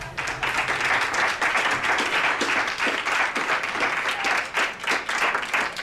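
Audience applause: many hands clapping in a dense, continuous round.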